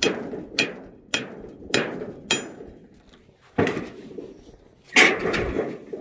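Hammer blows on an old shed being torn down: five quick, evenly spaced strikes, then two heavier blows with a longer ring.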